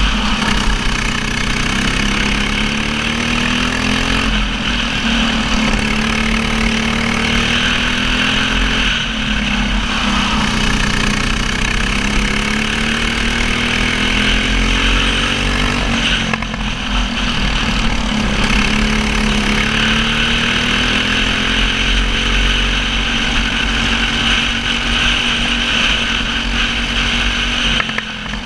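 Racing kart engine heard from on board under full racing load. Its pitch climbs steadily along each straight and drops back at each corner, about four times over, with steady wind noise.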